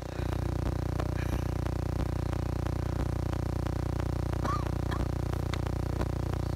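Steady electronic buzz with a light ticking about three times a second: a recording fault that has corrupted the audio track.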